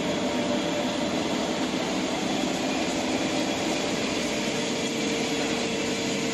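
Combined wire-drawing and scourer-making machine running: a steady mechanical whir with a faint, even hum that grows clearer about two-thirds of the way through.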